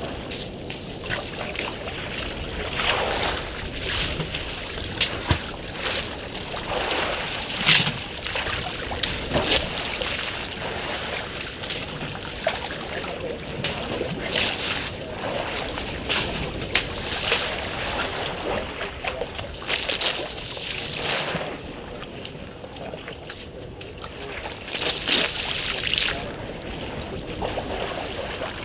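African elephants wading in a shallow waterhole, water splashing and sloshing in short bursts every few seconds, over a low rumble of wind on the microphone.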